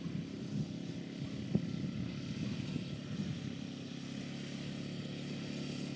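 Small engine running steadily, with a couple of knocks in the first two seconds.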